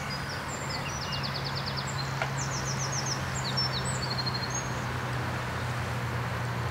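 Small birds chirping, with quick trills of rapid notes, during the first four seconds or so, over a steady low hum and outdoor background noise.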